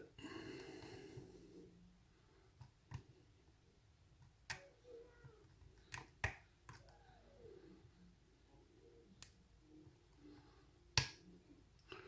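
Faint scattered clicks and light scraping of a hook pick and tension wrench working the pin stack of a spool-pinned American 1100 lock. About eight sharp ticks are spread through it, and the loudest comes near the end as a pin sets.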